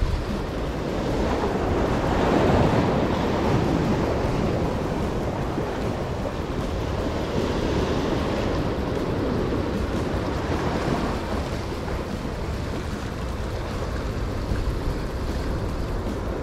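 Sea waves washing and splashing against jetty rocks, swelling and easing as each surge comes in, with wind rumbling on the microphone.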